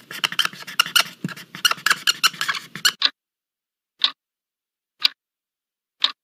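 Rapid, scratchy clicking like a pencil scribbling on paper for about three seconds. It stops abruptly, and then a clock ticks once a second, four times.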